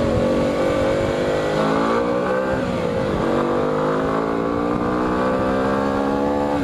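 Motorcycle engine under way as it is ridden, its pitch holding steady, rising as it accelerates, dipping sharply about three seconds in and then climbing steadily again.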